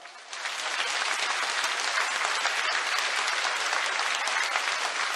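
A large seated audience clapping in a sustained round of applause. It builds up within the first second, then holds steady.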